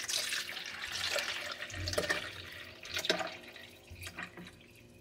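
Water being poured into a drip coffee maker's reservoir: a steady pouring splash that tapers off over the last couple of seconds, with a couple of light knocks partway through.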